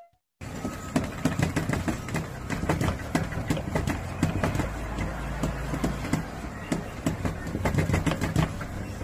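Steady low background rumble, with many small clicks and taps scattered throughout.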